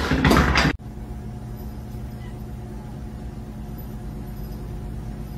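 A loud noisy burst cuts off abruptly under a second in. It gives way to a steady low mechanical hum with a few faint even tones, which holds level until another sharp cut near the end.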